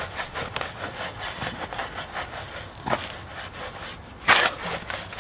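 Wheel brush scrubbing a soapy alloy car wheel, quick regular strokes about five a second, agitating wheel cleaner on the rim. One brief louder swish comes a little after four seconds in.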